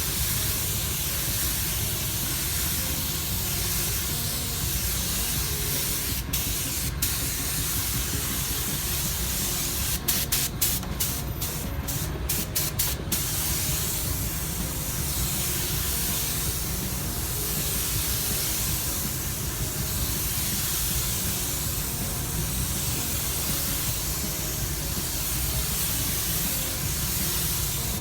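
Compressed-air paint spray gun hissing steadily as 2-pack paint is sprayed, the hiss swelling and fading about every two and a half seconds. A run of sharp clicks comes about ten to thirteen seconds in.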